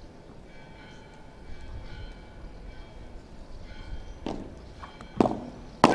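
Padel ball being struck: three sharp knocks of ball on racket, court and glass in the last two seconds, the last one the loudest.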